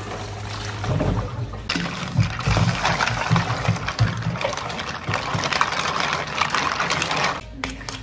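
Running water that starts suddenly about two seconds in and cuts off sharply near the end, with irregular low knocks under it in the first half.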